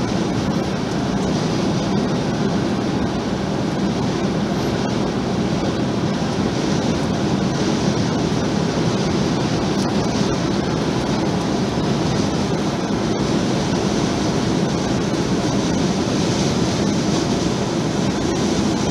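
Steady road and tyre noise with engine hum inside a vehicle's cabin cruising at highway speed.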